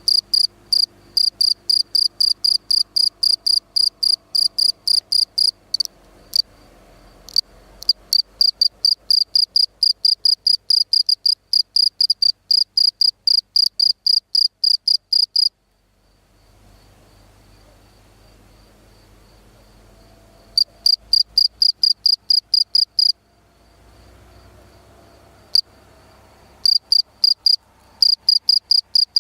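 Field cricket (Gryllus campestris) calling song: loud, high chirps repeated evenly at about three to four a second, in bouts broken by pauses of a few seconds.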